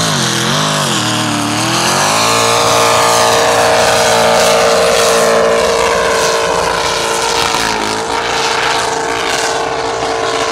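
Hill-climb Jeep Wrangler with a GM LS V8 launching at full throttle. The revs rise and dip twice in the first couple of seconds, then climb and hold high and steady as it powers up the sand dune.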